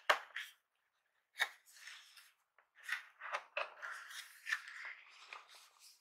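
Gloved hands handling a cardboard product box: a sharp knock at the start and another about a second and a half in, then a run of taps and knocks with rustling and scraping of the cardboard.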